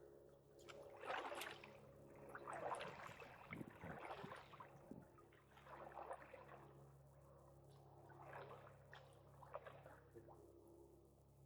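Faint kayak paddle strokes in water: a soft splash and trickle every second or two.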